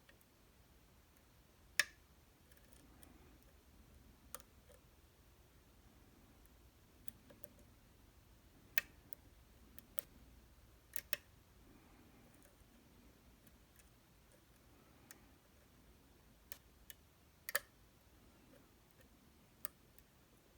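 Faint, irregular sharp metal clicks and ticks of lock-picking tools working inside a 14-pin Alpha ED dimple lock, a dozen or so spread unevenly with long quiet gaps between them.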